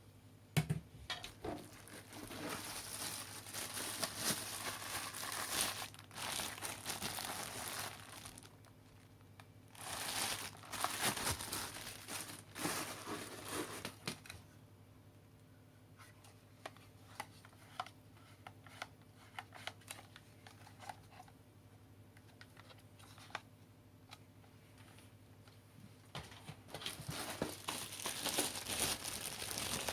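Packaging being unwrapped and handled, crinkling and rustling in three bouts, with scattered small clicks and taps in the quieter spell between them.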